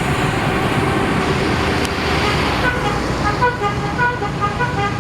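Bus telolet horns playing a quick tune of short notes at changing pitches, starting a little past halfway, over the steady noise of bus engines and traffic.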